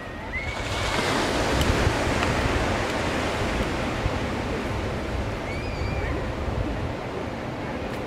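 Small surf breaking on a sandy beach: a wave washes up the shore about half a second in, and its rush slowly eases off over the following seconds.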